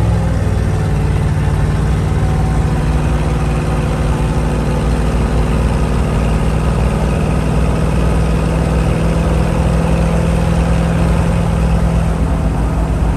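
Old Chevrolet truck's engine and road noise heard inside the cab at highway speed, a steady loud drone as the truck speeds up from about 60 to 70 mph.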